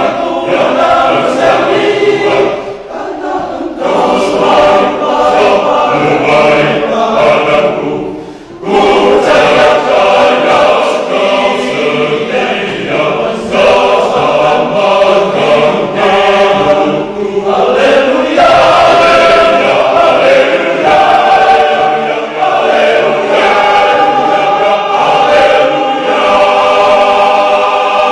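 Men's church choir singing a hymn in several parts, in sustained phrases with short breaks about 3 and 8 seconds in.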